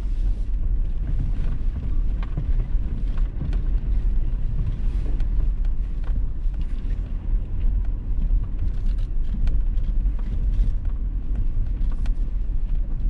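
Toyota 4Runner driving along a gravel forest road: a steady low rumble of tyres and running gear, with scattered small clicks and knocks throughout.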